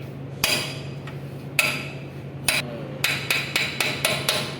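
Metal tapping as the outer wheel bearing is seated on the hub: about ten sharp ringing strikes, a few spread out at first, then a quick run of taps near the end.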